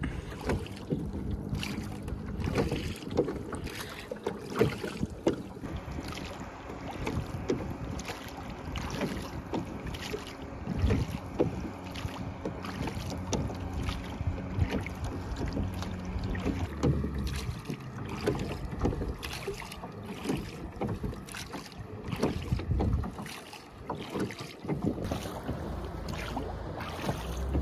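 Small rowboat being rowed on open water: the oars knock and creak in their oarlocks and splash as they dip, with irregular clicks and wind buffeting the microphone.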